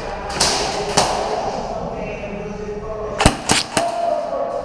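Airsoft gunfire: a few sharp single cracks, with three close together about three seconds in.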